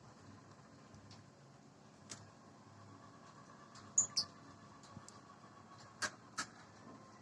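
Two brief, high-pitched squeaks from a small animal about four seconds in, the first falling in pitch. A few sharp clicks or taps come around them, over a faint steady hum.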